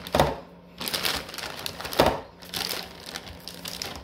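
Plastic cheese packets crinkling as they are handled and set into a clear plastic storage bin, with two louder knocks, one just after the start and one about two seconds in.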